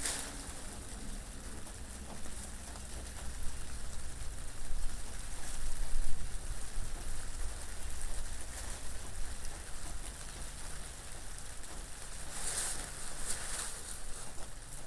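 Steady rain falling, with wind. The hiss of the rain swells twice near the end.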